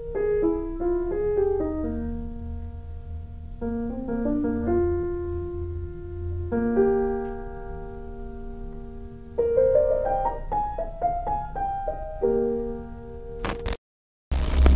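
Solo piano music: a slow melody of single notes and chords with held notes. Near the end it breaks off with a click and a moment of dead silence, followed by a burst of hiss.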